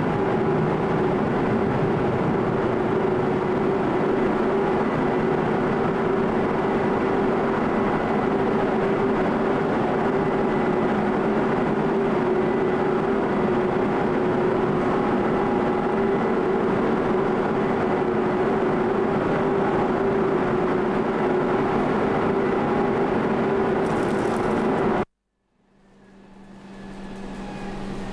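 The car ferry Koningin Beatrix under way: a steady drone from its engines and machinery, with a constant hum through it. Near the end the sound cuts out for a moment and comes back much quieter, with a lower steady hum.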